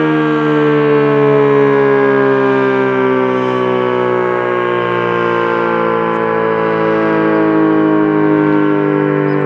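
ACA P-50 outdoor warning siren sounding loud and continuous, a chord of several tones whose pitch slowly falls.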